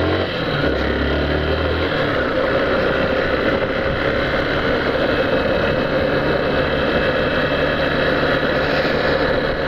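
Yamaha Factor 150's single-cylinder four-stroke engine running on the move, under a steady rush of wind and road noise. The engine's low hum drops away about two seconds in, and a steadier, higher hum sets in about halfway.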